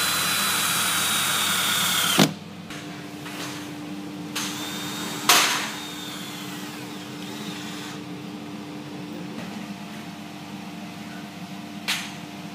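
Cordless drill-driver driving screws into an aluminium door frame: the motor runs with a steady whine for about two seconds and stops with a sharp click, then about five seconds in a sharp click and a second, shorter run of the drill that trails off. A faint steady hum follows, with one more click near the end.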